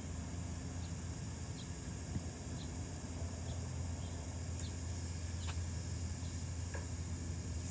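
Outdoor ambience: a steady low hum with a faint high haze, and faint short chirps about once a second.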